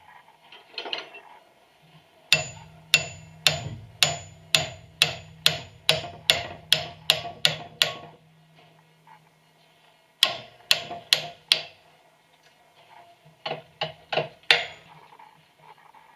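Hammer striking a cold chisel to cut through a rusty steel shackle held in a bench vise. First comes a run of about a dozen ringing metal strikes, roughly two a second, then four quicker strikes and a last cluster of about five near the end.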